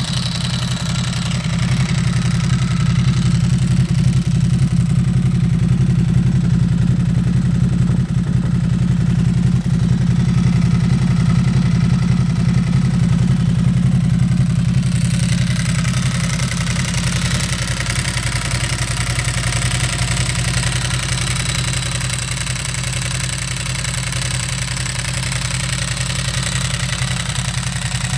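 Ducati Hypermotard 1100S air-cooled L-twin idling steadily through Termignoni carbon-fibre slip-on exhausts, with the rattle of its dry clutch. A higher hiss comes up about halfway through.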